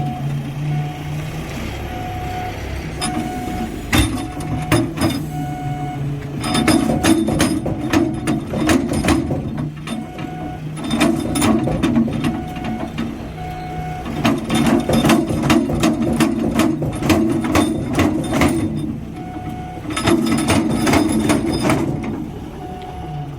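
Heavy machinery running, with a short beeping alarm repeating steadily and four long spells of loud rattling and clanking.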